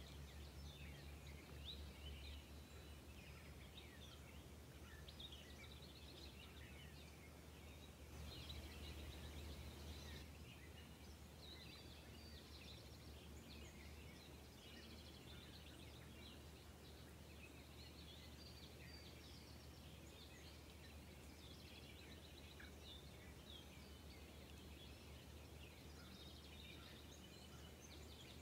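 Faint outdoor ambience of many small birds chirping on and off, with a rapid ticking trill about eight seconds in and again near the end, over a steady low hum.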